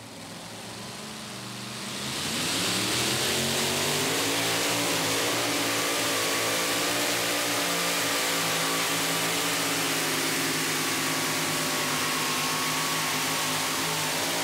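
Supercharged 575-cubic-inch engine with a 14-71 blower in a modified two-wheel-drive pulling truck, at full throttle while dragging a pulling sled. The engine note builds and climbs in pitch over the first two seconds or so, then holds a steady high-rpm pitch.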